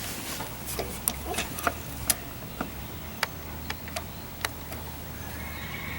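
Scattered light clicks and taps of small carburetor parts and tools being handled, irregular and a second or so apart, while the mower's carburetor is being put back together.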